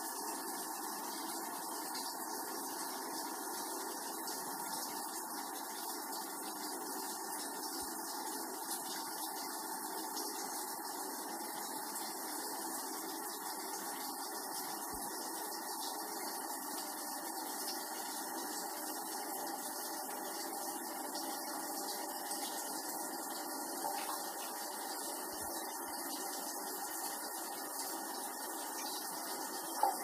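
Toilet cistern refilling after a flush: water running steadily through the fill valve into the tank.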